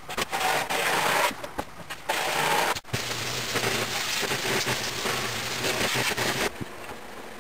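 Power saw cutting wood boards in several passes, with short breaks about a second in and near three seconds, and the cutting noise dropping away about six and a half seconds in.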